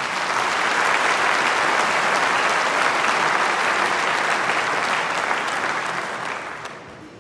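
Large audience clapping in a big hall. The applause swells up at once, holds steady for several seconds, then dies away near the end.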